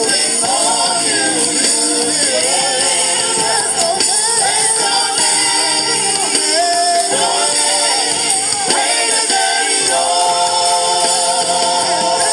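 Gospel worship music: voices sing a wavering melody without clear words over the band, with a steady shimmering jingle like a tambourine.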